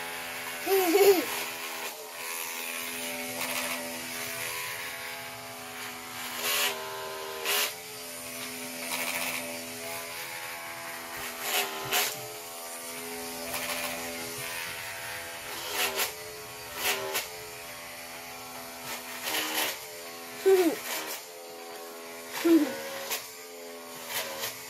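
Corded electric hair clippers running with a steady buzz while cutting hair. Sharp clicks and knocks are scattered through it.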